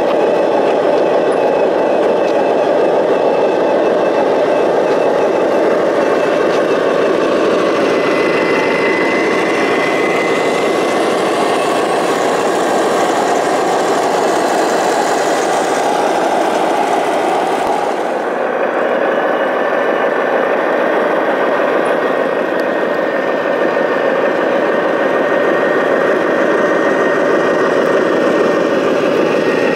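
Radio-controlled scale model trucks, a MAZ-537 8x8 and a Globe Liner tractor, driving with a steady diesel-like engine sound, most likely from their onboard sound units. A thin high whine comes and goes, and the sound changes about two thirds of the way in.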